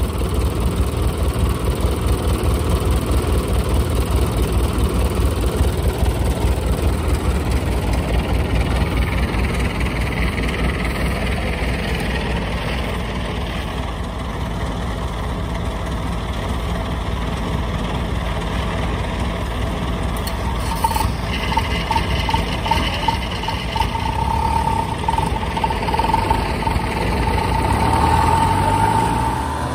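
Diesel engine of a Kubota DC-70 tracked rice combine harvester running steadily with a fast low chugging. About 21 seconds in, a higher steady tone joins the engine and holds until near the end.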